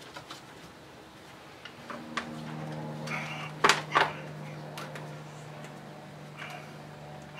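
A few sharp knocks and clicks of the upper radiator bracket and fan assembly being fitted into place. The two loudest come close together about four seconds in, over a steady low hum that starts about two seconds in.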